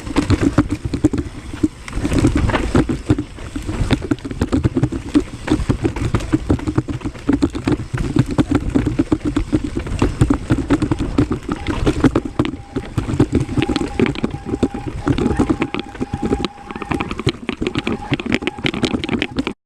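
Mountain bike riding fast over a dirt and rock trail: tyres rolling and crunching over dirt and rocks, with a continuous clatter of knocks and rattles from the bike. A thin steady whine runs through the middle of the ride and stops a couple of seconds before the end.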